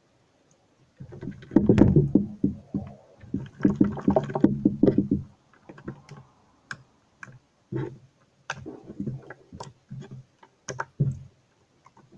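Soft, watery jiggly slime being squeezed and worked by hand, squelching for about four seconds, then a string of short wet pops and squishes.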